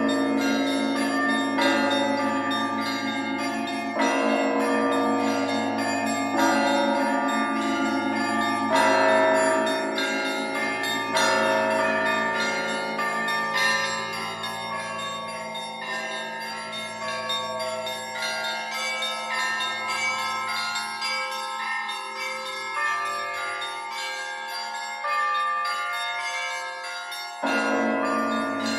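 Church bells being rung: smaller, higher bells struck in a running pattern over a deep bell sounding about every two seconds. The ringing thins out and quietens in the second half, then comes back loud and full near the end.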